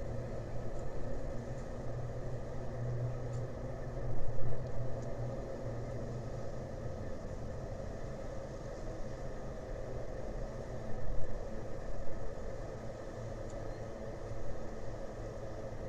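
A steady low engine hum, with two brief louder rumbles about four seconds in and about eleven seconds in.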